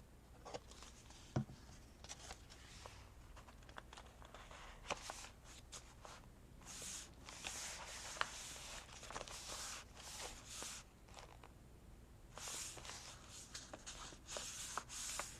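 Faint rustling and rubbing of paper and washi tape being handled and pressed down, with a few small clicks and taps.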